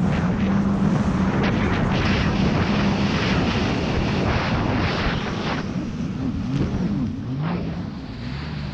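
Sea-Doo GTX 300 Limited's supercharged three-cylinder engine running hard at speed, a steady drone under wind rushing over the microphone and the spatter and slap of spray and chop on the hull. The engine note wavers and eases off slightly near the end.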